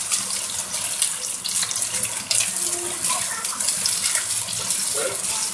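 Strips of Maling canned luncheon meat frying in oil in a wok: a steady sizzle with lots of small crackles and pops.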